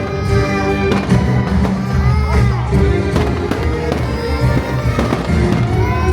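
Fireworks bangs and pops going off several times at irregular intervals over loud music.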